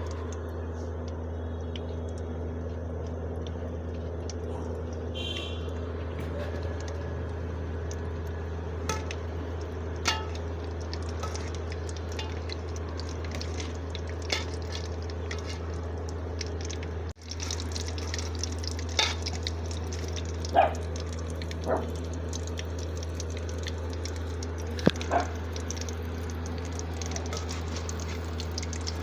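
Breaded chicken cheese balls deep-frying in hot oil with a steady sizzle over a low hum. A spoon taps against the pan now and then, more often in the second half, with a brief break about two-thirds of the way through.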